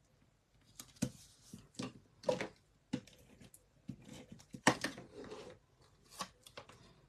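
Paper crafting at a desk: cardstock pieces being picked up, tapped down and pressed onto one another, a series of sharp clicks and short papery scrapes, the loudest a little under five seconds in.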